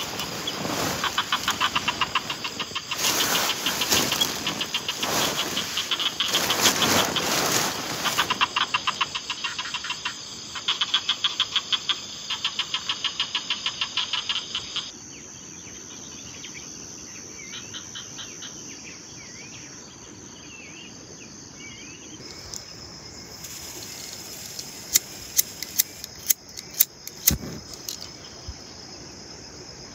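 Outdoor ambience with insects calling in trains of fast, regular pulses over a steady hiss. About halfway in it drops to a quieter background with faint chirps. Near the end come a few sharp clicks.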